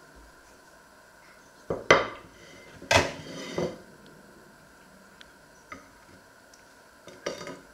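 A china plate clattering and knocking as it is handled and set down on a wooden worktop, with a few sharp knocks about two and three seconds in, small clicks after, and a short clatter of crockery near the end.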